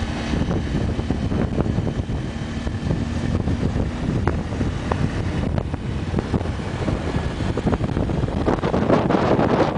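Motorcycle engine running under way, mostly buried in wind buffeting the microphone, with the wind rising near the end.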